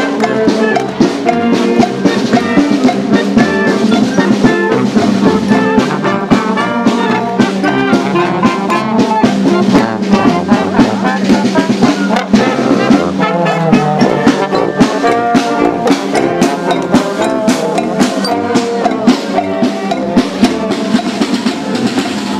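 Marching brass band playing while walking past: trumpets, horns, a tuba and clarinets over a steady snare drum beat.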